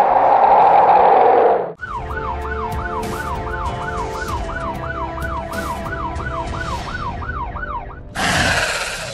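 A fast police siren sound effect, rising and falling about three times a second, over a low rumble for about six seconds. Before it comes a steady whooshing swirl; near the end it cuts to a loud, harsh dinosaur roar.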